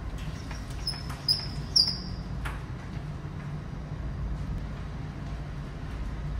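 Steady low rumble of a ship under way, heard from inside the bridge, with three short high squeaks about one to two seconds in.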